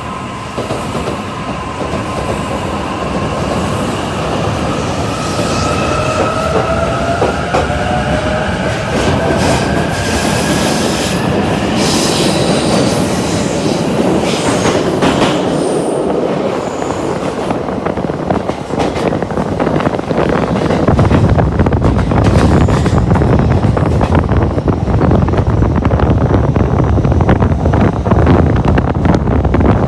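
Shinkansen bullet train running, with several whining tones that slowly slide in pitch over the first ten seconds or so. The sound grows steadily louder, becoming a heavy rush with a deep rumble from about twenty seconds in.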